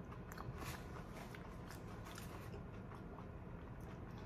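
A person chewing a mouthful of food, with faint, irregular wet mouth clicks.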